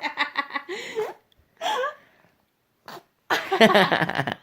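A baby's fake sneezes: voiced, drawn-out "achoo"-like cries, a short one about a second and a half in and a longer, louder one near the end.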